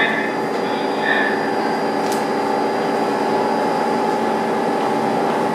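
R46 subway train sounding a steady, unchanging hum made of several held tones, with one sharp click about two seconds in.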